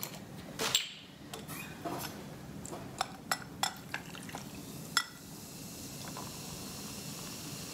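Sparkling grapefruit juice poured from a glass bottle over ice into a glass. First come sharp clicks and clinks of bottle, glass and ice; from about five seconds in there is a steady fizz.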